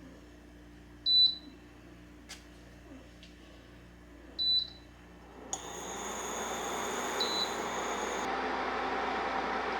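An electronic appliance's control panel beeping: two short, high beeps about three seconds apart with a faint click between them. About halfway through the appliance starts running with a steady whirring hum that swells and holds, and a fainter beep sounds near the end.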